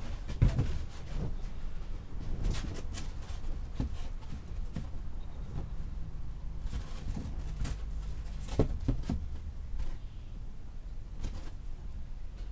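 Foil-faced rigid foam insulation panels being handled and stood on edge: scattered light knocks, scrapes and rustles, the sharpest just after the start and again about two-thirds of the way through, over a steady low hum.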